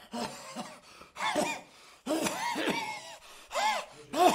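Wordless vocal groans and gasps from an actor: several short moans that rise and fall in pitch, with breaths between, as of someone in distress.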